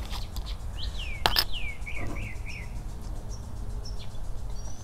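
Small birds chirping: a run of quick descending chirps, then more of them near the end, over a low steady rumble of traffic. About a second in, one sharp click as the cap comes off a glass soda bottle.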